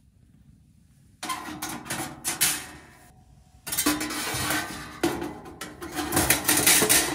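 Perforated metal oven shelf scraping and clattering as it is slid into the rails of a wood-stove box oven, with sharp metal knocks. It comes in two bouts: one starting about a second in, and a longer, louder one from about halfway.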